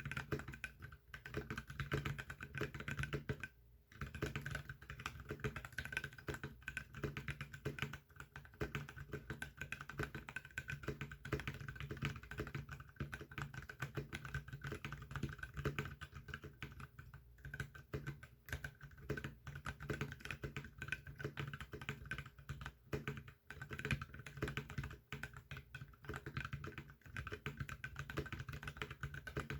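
Continuous fast typing on a NovelKeys NK65 Entry Edition mechanical keyboard with lubed Zealios v2 67g tactile switches and PBT keycaps, with a brief pause about three and a half seconds in.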